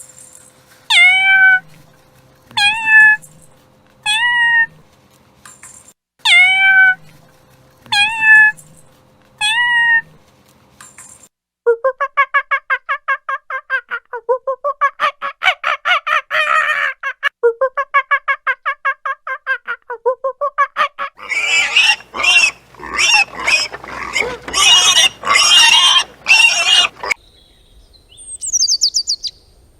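A series of animal calls from more than one kind of animal: six short calls that each drop sharply in pitch, then a long stretch of fast pulsed calls, then harsh, noisy calls near the end.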